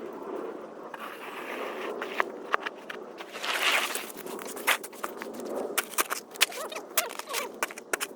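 Snow shovel scraping over pavement, with a string of sharp knocks and crunching steps in snow, and one longer scrape about three and a half seconds in.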